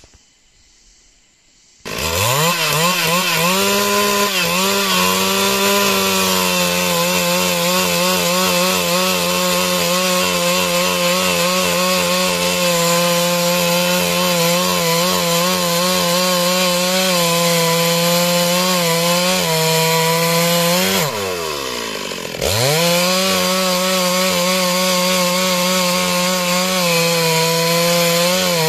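Stihl MS 382 two-stroke chainsaw held at full throttle while ripping a log lengthwise. It starts abruptly about two seconds in, its pitch wavering at first as it bites into the wood, then runs steadily. About two-thirds of the way through, the engine note drops sharply and picks back up.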